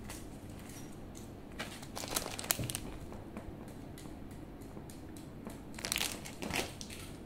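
Crinkling and rustling handling noise with sharp little clicks, in two short spells, about two seconds in and again near six seconds in.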